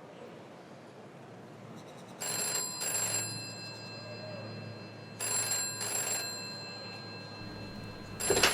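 Telephone ringing in a double-ring pattern: two double rings, and a third beginning near the end, over a low steady hum.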